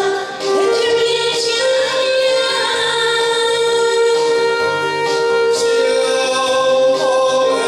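A man and a woman singing a duet over a karaoke backing track, with one long note held through most of it.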